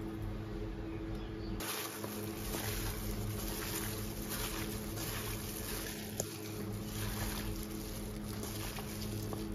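A hand in a plastic glove mixing raw chicken wings, mushrooms and seasoning in a stainless steel bowl: continuous wet rustling and crinkling with many small clicks, starting about a second and a half in, over a steady low hum.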